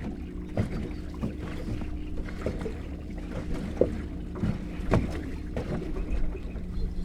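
A boat's motor runs with a steady hum. Irregular knocks and slaps are heard over it, as waves hit the hull in the choppy water.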